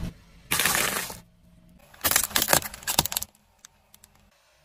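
Crunching and crackling of objects crushed under a car tyre, in two bouts: a short crunch about half a second in, then a run of sharp cracks from about two seconds in.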